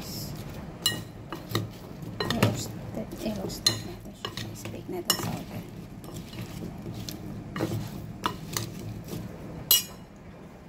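Metal spoon stirring and scraping through diced sweet potato in a glass bowl, with irregular clinks of the spoon against the glass; the sharpest, ringing clink comes near the end.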